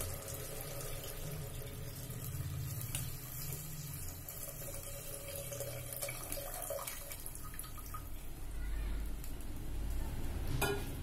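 Thin, watery liquid poured from a steel pan into a clay pot of curry, splashing and running steadily into the gravy.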